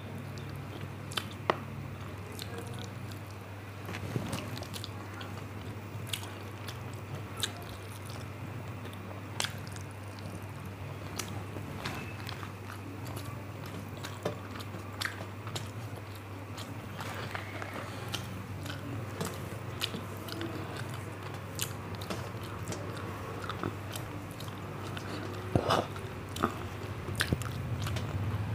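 Close-miked eating of rice and curry: chewing and wet mouth smacks, with scattered sharp clicks and a few louder ones near the end, over a steady low hum.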